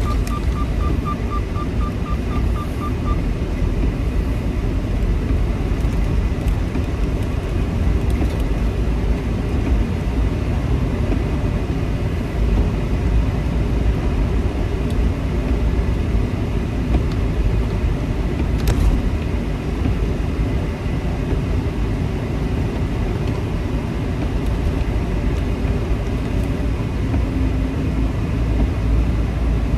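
Semi truck on the move, heard from inside the cab: a steady low rumble of engine and road noise. A rapid run of short high beeps, about four a second, stops about three seconds in.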